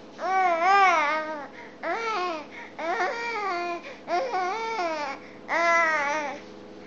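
Five-month-old baby vocalizing on her tummy: five drawn-out, high-pitched babbling sounds, each rising and falling in pitch, with short breaks between them.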